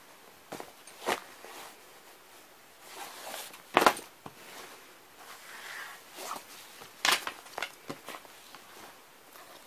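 Fabric messenger bags being handled and shifted about: scattered rustles and knocks, the loudest about four seconds in, with a cluster of smaller ones around seven to eight seconds.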